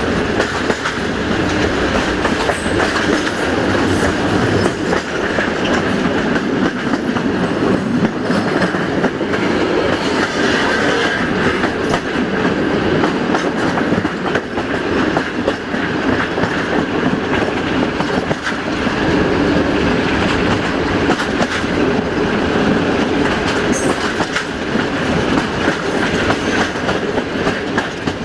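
Wheels of a moving passenger train rolling steadily over the rails at speed, heard from an open coach window.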